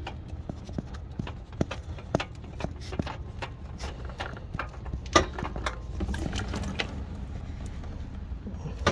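Irregular clicks and light knocks as the oil filter of a 2006 Honda Accord is twisted off by hand, with a louder knock about five seconds in, over a low rumble.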